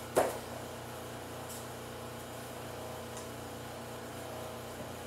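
Two Nerf blasters fired together give one short, sharp pop about a quarter of a second in. A steady low room hum follows, with a few faint ticks.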